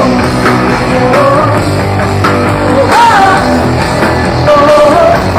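Rock band playing with a sung vocal line over electric guitar, bass and drums.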